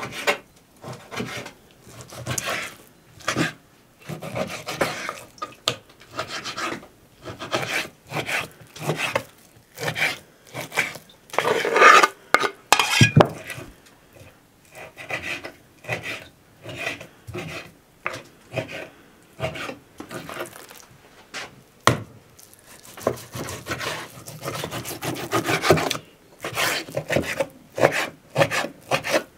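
Kitchen knife slicing raw meat into chunks on a wooden cutting board: irregular sawing strokes, about one or two a second, the blade rasping through the meat and scraping the board.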